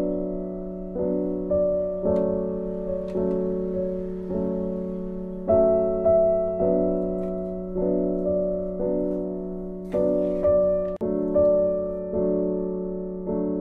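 Background piano music, with notes struck roughly once a second, each ringing and fading before the next.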